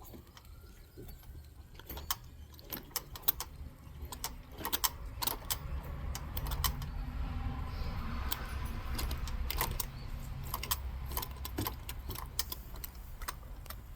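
Small model steam engine trying to turn over on weak steam: irregular light metallic clicks and ticks, with a soft hiss of steam swelling in the middle. The boiler has too little pressure to make it run.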